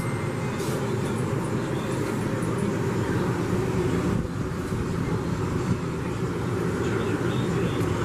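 Steady low mechanical rumble, unchanging throughout.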